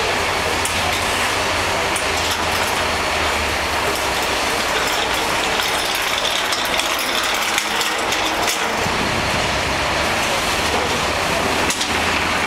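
Steady machinery noise with a low hum, with scattered clicks and knocks throughout and a sharper knock near the end.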